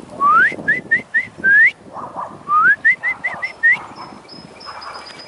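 A person whistling close by to call dogs: two runs of rising whistles, each a long upward sweep followed by several short rising chirps.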